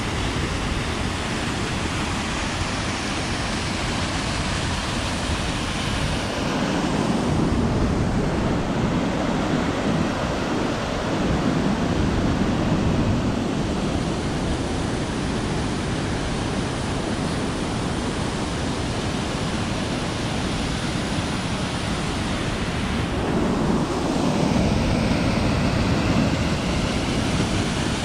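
Christine Falls on Van Trump Creek rushing steadily: a constant wash of falling water, growing a little louder twice.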